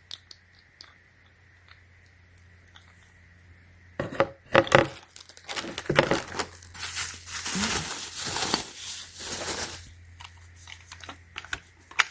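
Packaging being torn open and crinkled by hand: a few faint clicks, then from about four seconds in some six seconds of loud tearing and crinkling.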